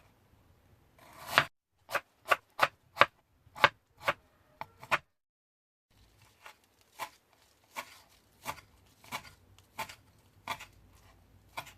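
Kitchen knife slicing an onion on a cutting board: a run of sharp cuts about three a second, then after a short break slower, softer cuts about one and a half a second.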